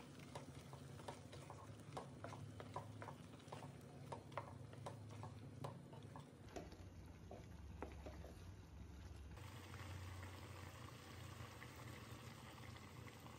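A wooden spatula stirring cauliflower and potato through a thick curry gravy in a pan: quiet wet clicks and scrapes, many in quick succession, through the first half. After that only a low steady hum with a faint bubbling haze remains.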